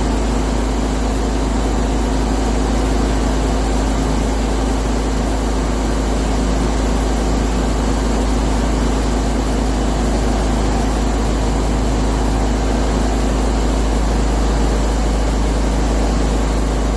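Steady drone of a paint spray booth's air handling with a constant low hum, under the even hiss of a compressed-air spray gun laying clear coat on alloy wheels.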